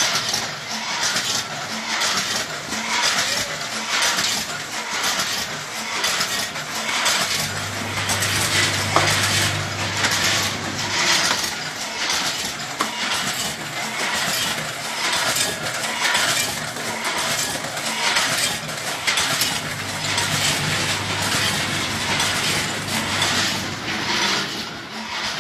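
Multi-head weigher packaging machine running, a rhythmic clatter and clinking repeating about twice a second as snacks are fed, weighed and dropped into bags. A low hum comes in twice for a few seconds.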